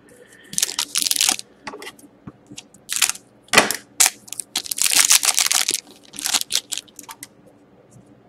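Upper Deck Artifacts hockey card pack wrapper being torn open and crinkled by hand, in a series of short rustling bursts with a longer tear about five seconds in.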